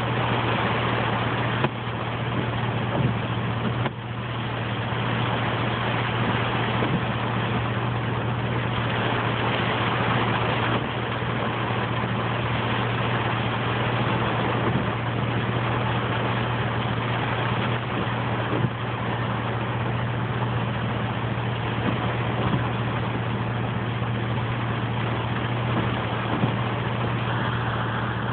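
Heavy rain falling on a vehicle's roof and windshield, heard from inside the cab as a steady hiss, over the low, steady hum of the engine idling.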